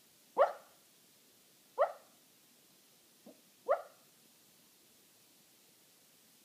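Sleeping puppy giving short, muffled yips in a dream: three sharp little barks about one and a half to two seconds apart, with a fainter one just before the third, then quiet.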